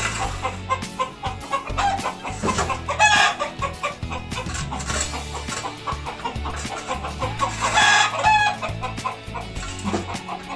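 Backyard chickens clucking, with a rooster crowing partway through.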